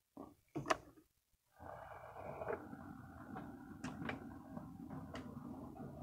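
HO scale model train starting off and rolling along the track: a steady low whir and rumble of the locomotive's motor and wheels, with several sharp clicks from the cars running over the track. Before it sets off, about a second and a half of short handling clicks and one sharp tap.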